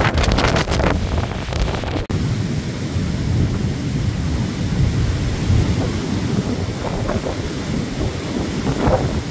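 Blizzard wind gusting hard against the microphone as a heavy low rumble, crackling and hissing for the first two seconds, then an abrupt break and steadier buffeting.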